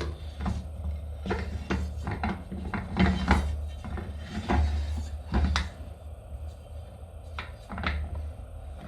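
Irregular clicks, knocks and light scrapes of metal parts being handled, as the disc guard is fitted onto a Makita GA9050 large angle grinder, over a low steady hum.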